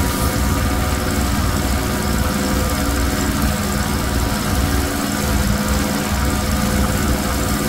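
Pressure washer with a small gas engine running steadily while its wand sprays water onto a rug, a constant engine drone under a steady hiss of spray.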